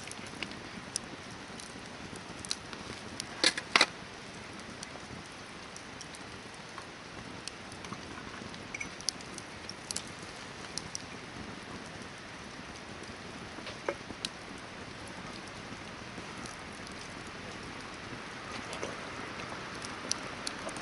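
Hardwood campfire burning with a steady hiss and scattered sharp crackles and pops, the loudest a pair of pops about three and a half seconds in.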